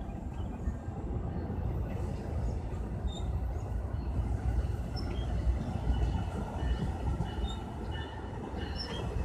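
NJ Transit double-deck passenger coaches rolling past on the track beside the platform: a steady low rumble of wheels on rail, with faint high-pitched wheel squeal from about six seconds in.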